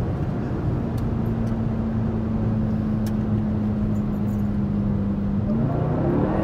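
Dodge Durango SRT Hellcat's supercharged 6.2-litre HEMI V8 running at speed under a dense low rumble of road noise. It holds a steady tone that sinks slightly, then rises in pitch near the end as the engine picks up.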